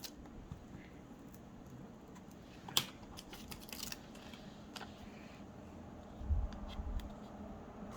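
Quiet handling of paper scraps for a collage: a sharp click a little under three seconds in, a brief rustle of paper just after, a few more small clicks, and low thumps about six seconds in.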